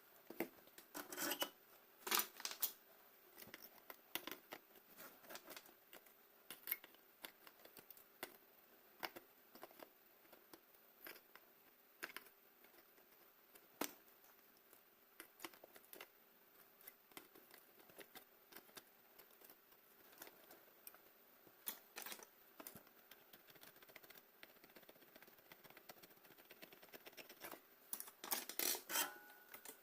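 Scattered faint clicks and snips of small hand tools working on a battery charger's circuit board, with a few louder snaps about two seconds in and again near the end.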